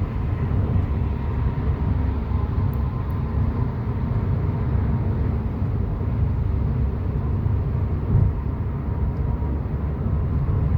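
Steady low road and engine rumble inside a car cabin at highway speed.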